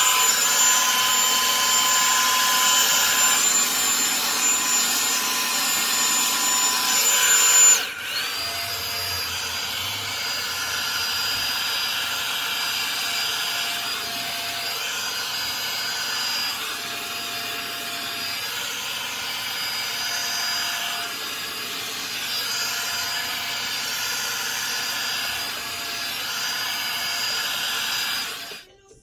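Revlon One-Step Volumizer hot-air brush dryer running steadily with a motor whine. About eight seconds in it drops to a quieter, lower-pitched running, as on a lower setting, and it switches off just before the end.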